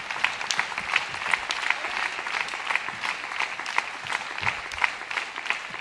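Applause: many people clapping at a steady level, a dense patter of hand claps.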